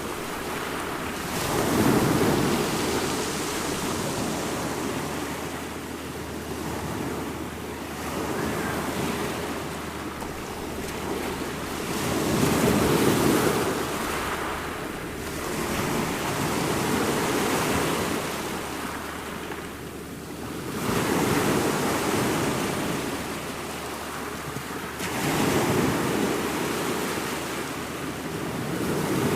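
Ocean surf: waves breaking and washing in, swelling and easing every few seconds, with some wind.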